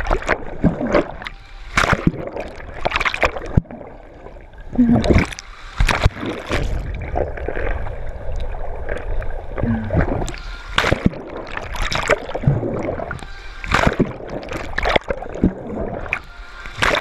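A swimmer's strokes through water: splashing and gurgling in irregular bursts, roughly one a second.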